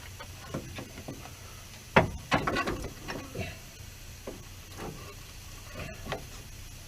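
Scattered metallic knocks and clunks from handling and fitting a truck's front strut assembly. The loudest knock comes about two seconds in, followed quickly by a few more, then lighter taps now and then.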